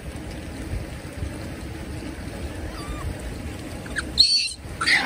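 Two short, high-pitched animal calls close together about four seconds in, the first the loudest sound here, over a steady low rumble; a fainter brief rising call comes a little before them.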